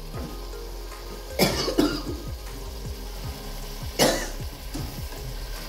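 Chickpea masala gravy bubbling and plopping as it cooks in a pot, small pops coming two or three a second. A person coughs sharply twice, about a second and a half in and again about four seconds in.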